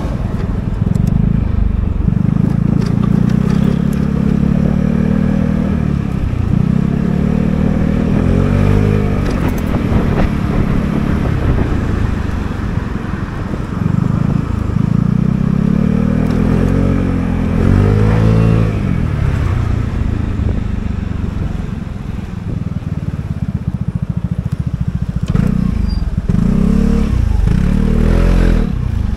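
Vespa GTS 300 scooter's single-cylinder four-stroke engine heard from the rider's seat while riding. Its note rises and falls with the throttle several times as the scooter speeds up and slows.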